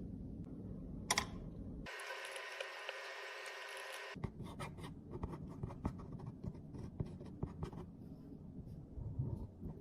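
Close-up scratching, scraping and light clicking of tools and containers being handled while makeup is repaired. About two seconds in there is a short stretch of hiss before the small clicks and scrapes pick up.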